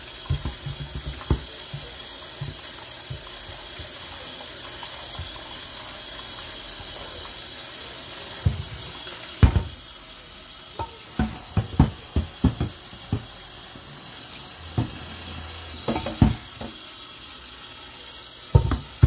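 Tap water running steadily into a stainless steel sink while a steel pot is scrubbed with a sponge and rinsed. Sharp metal knocks and clanks of the pot being handled break in again and again, most of them in the second half.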